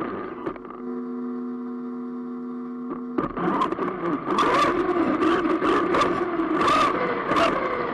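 RC car heard from its onboard camera: a steady pitched hum for about two seconds, then, about three seconds in, louder rough scraping road noise as it drives, with repeated sharp ticks and a motor pitch that glides down near the end.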